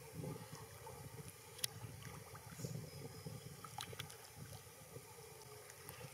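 Faint outdoor ambience of wind rumbling on the microphone and water lapping, with a few sharp clicks.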